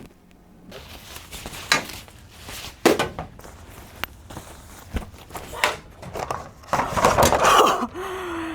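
Footsteps with scattered knocks and clicks as people move about and handle things in a small room. A denser rustling clatter comes near the end.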